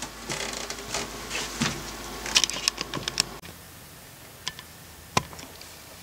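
Scattered light clicks and rustling from someone moving about and handling cables and tools, over a low background hum. The hum cuts off about halfway through, leaving a couple of isolated sharp clicks.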